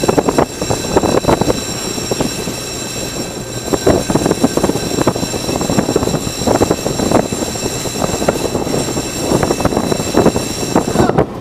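Steady running noise of a longline fishing vessel's engine and deck machinery, with several high steady whining tones over it, broken by frequent knocks and clatter of gear being worked at the rail.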